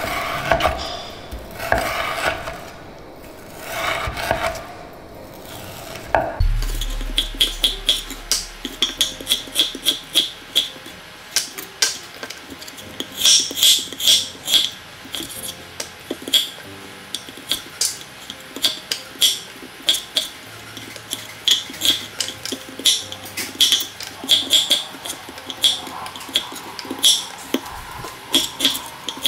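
Chef's knife dicing raw pork tenderloin on a wooden cutting board: slower slicing strokes for the first few seconds, then rapid sharp knocks of the blade striking the board, about two or three a second.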